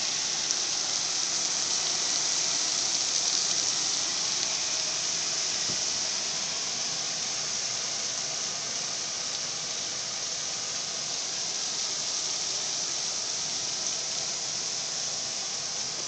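Heavy thunderstorm rain falling, a steady hiss with no thunder heard.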